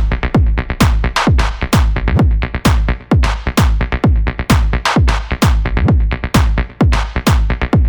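Electronic dance music with a pounding kick drum, about two beats a second.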